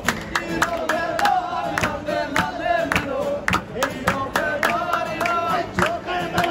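Street musicians singing to acoustic guitars, with a crowd singing along and clapping in rhythm, several claps a second.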